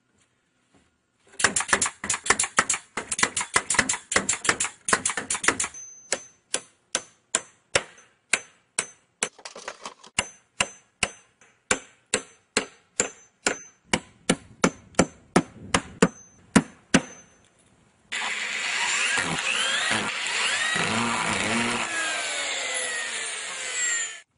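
Hammer blows on wood: a fast run of strikes, then steady hammering at about two blows a second. Near the end, about six seconds of harsh continuous scraping with squealing glides in pitch.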